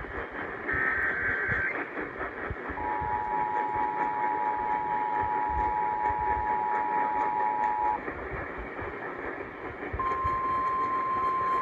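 Emergency Alert System broadcast over a hissy radio feed. Near the start there is a short screech of SAME header data. Then the two-tone EAS attention signal holds for about five seconds, and after a gap of about two seconds a single steady alert tone starts: the lead-in to a tornado warning.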